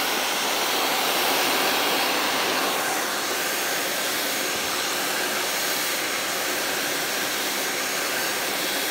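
Hand-held hair dryer running steadily, blowing air to blow-dry a section of hair.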